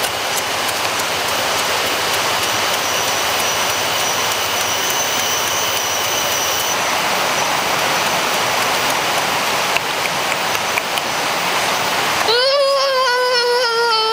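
Steady rushing water of a stream or waterfall. About twelve seconds in it cuts off suddenly and a drawn-out, high vocal tone takes over, slowly falling in pitch.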